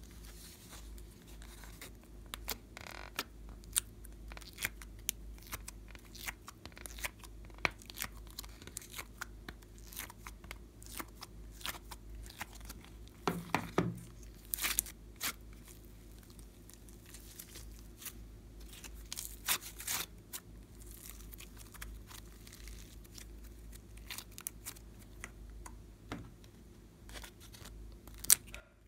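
Slime being pressed, folded and peeled out of a plastic heart-shaped mold, giving many small sticky crackles and clicks, with a dense flurry of them a little before the middle. A faint steady low hum lies underneath.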